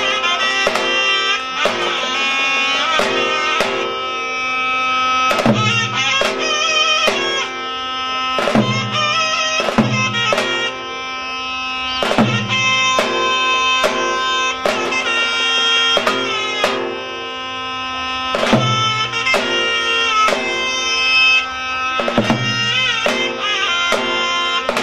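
Zurna and davul playing a slow, heavy ağır zeybek dance tune: the zurna carries a continuous ornamented melody over deep davul strokes spaced a second or more apart in an uneven, lilting beat.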